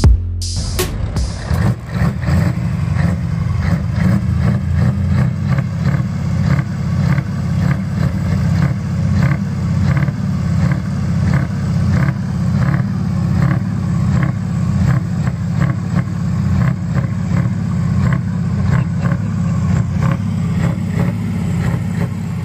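Heavy truck's diesel engine running, a deep steady rumble with a regular pulsing rhythm.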